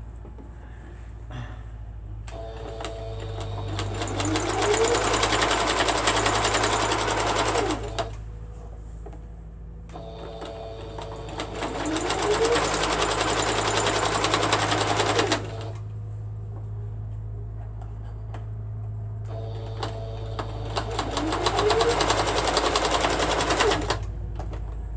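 Sewing machine stitching through a quilt in three separate runs, each starting up and speeding up to a fast, even stitch before stopping, with pauses between.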